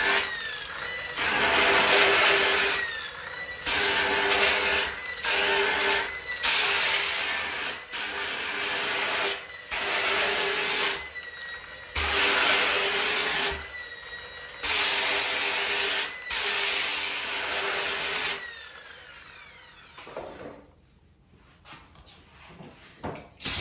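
Makita rotary sander-polisher with a 40-grit disc sanding the fibreglass around a surfboard fin chop to remove the damage. The grit rasps in bursts of one to two seconds as the disc is pressed on and lifted, with the motor whining steadily between. About 18 seconds in the motor is switched off and winds down, and there is a sharp knock just before the end.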